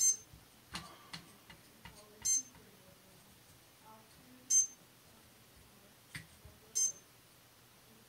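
Four short high-pitched chirps, evenly spaced a little over two seconds apart, with a few fainter light clicks between them.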